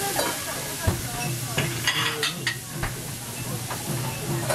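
Wrapped asparagus skewers sizzling on a hot teppanyaki griddle, with several sharp clicks and knocks of skewers and utensils against the metal plate about one to three seconds in.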